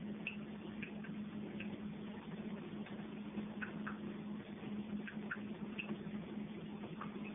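Water dripping from a kitchen faucet: small irregular drips plinking into a stainless steel sink, about two a second, over a steady low hum.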